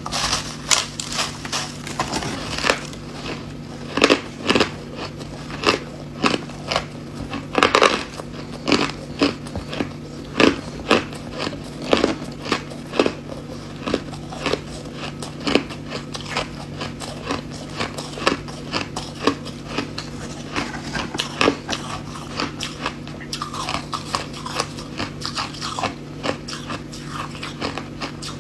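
Ice being bitten and chewed: a long string of sharp, irregular crunches, about one or two a second.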